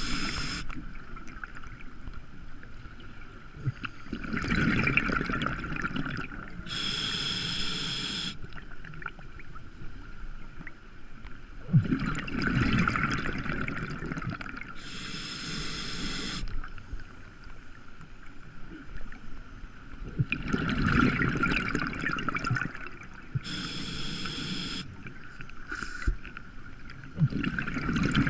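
Scuba diver breathing through a regulator: loud rushes of exhaled bubbles alternate with short hissing inhales, about one breath every eight seconds.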